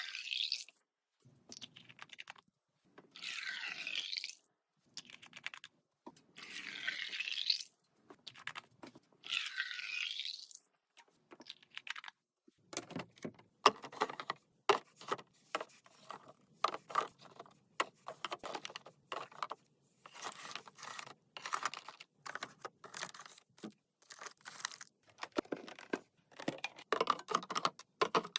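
Restocking handling noises: three swishes of about a second each, then a long run of quick clicks and taps as packaged snacks and drinks are handled and set down.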